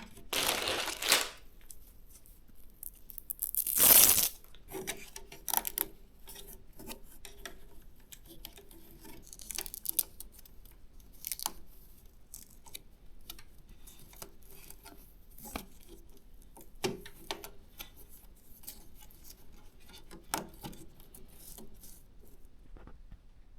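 Hands handling PC parts: a scatter of small clicks and taps, with two short noisy rasps, a short one near the start and a louder one about four seconds in.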